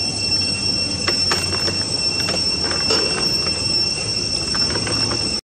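Steady high-pitched drone of insects calling, holding one pitch throughout, with scattered small clicks; the sound cuts off suddenly just before the end.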